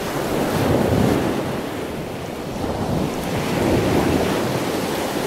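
A steady rushing noise with no pitch to it, swelling about a second in and again near four seconds.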